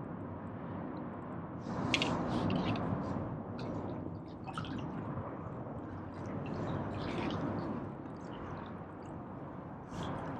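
Water splashing and dripping close to a kayak, in irregular splashy bursts every two to three seconds.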